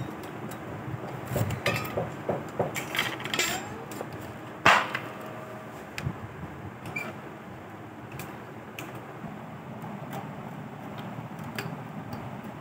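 Sitar strings being handled and re-seated on the bone bridge: light metallic clicks and scratchy rattles in the first few seconds, then one sharp click with a brief ringing note a little over a third of the way in, followed by a few faint ticks.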